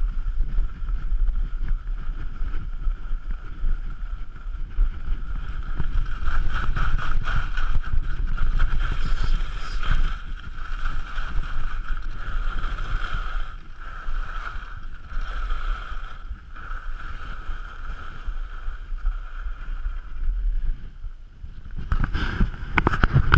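Skis running over snow with wind buffeting the helmet-mounted GoPro's microphone, a steady rush that swells and eases with speed. About 22 seconds in, a burst of sharp knocks and scraping.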